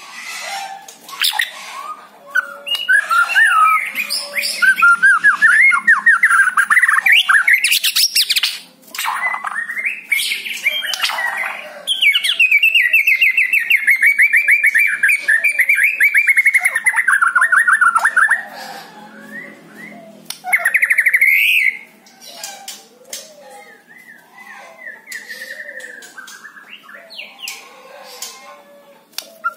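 White-rumped shama singing a loud, varied song of whistles, trills and sharp clicking notes, with a long fast run of repeated notes in the middle. The song turns softer and sparser near the end.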